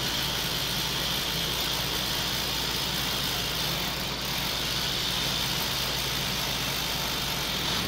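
Heavy rotary hammer drill boring a 12 mm hole through wall tile into a concrete wall, running steadily at a constant pitch.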